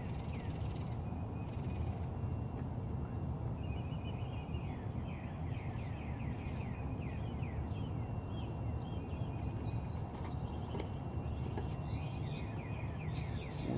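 Birds chirping in repeated quick downward-sweeping calls and trills, over a steady low rumble.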